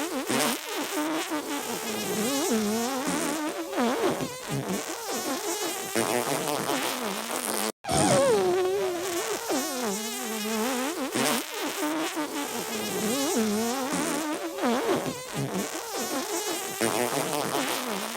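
Looped sneeze-and-fart sound effect: wobbling, warbling pitched blasts, with a brief cut-out about eight seconds in where the loop starts over.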